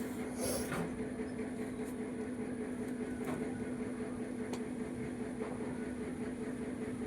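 A steady low mechanical hum with a constant pitch, with a few faint clicks.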